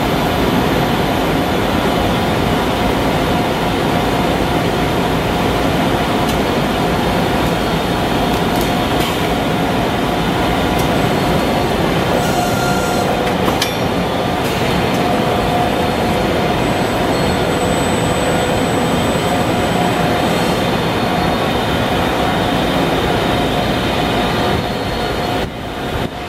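Steady industrial machinery noise from a running automated CNC turning cell and the factory floor around it, with a few faint steady tones and a single sharp click about halfway through.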